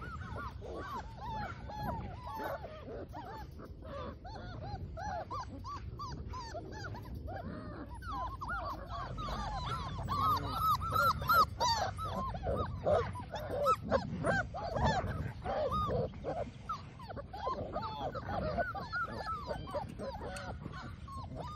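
Labrador retriever puppies whining and yipping, many short rising-and-falling cries overlapping, louder from about halfway through.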